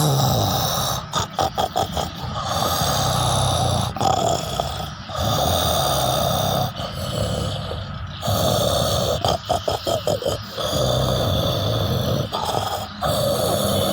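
A sleeping person snoring loudly: long rasping breaths, broken twice by runs of rapid fluttering pulses, about a second in and again near ten seconds.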